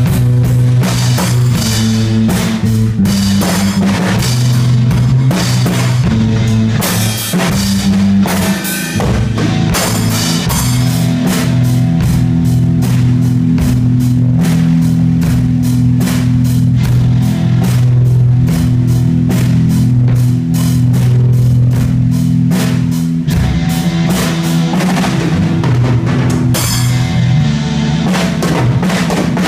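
A small rock band playing live: a Mapex drum kit beating a steady rhythm of drum and cymbal hits over electric bass and electric guitar holding sustained low notes.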